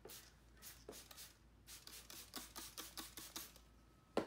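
Handheld trigger spray bottle spritzing soap-and-water solution onto paint protection film on a car panel: about a dozen quick hissing squirts in a row, roughly three or four a second. A single sharp click comes near the end.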